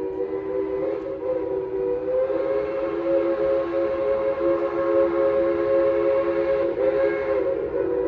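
Steam locomotive #190's chime whistle sounding one long, held blast, several notes together as a chord, shifting slightly upward in pitch about two seconds in and wavering near the end.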